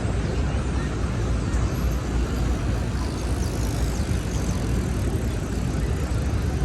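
Steady city street traffic noise: a continuous low rumble with no single vehicle or event standing out.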